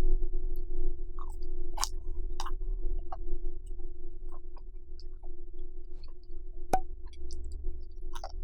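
Scattered sharp clicks and taps of eating, about one every second or so, the loudest nearly seven seconds in, over a steady electrical-sounding hum.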